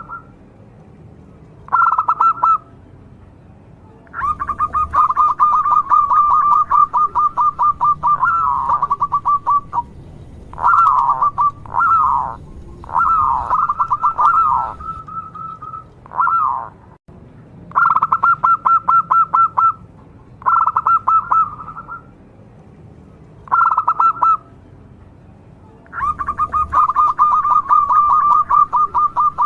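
Zebra dove (perkutut) cooing in runs of fast, evenly repeated coos at one steady pitch. Some runs are short and some last several seconds, and a few curving, bending notes come in about halfway through.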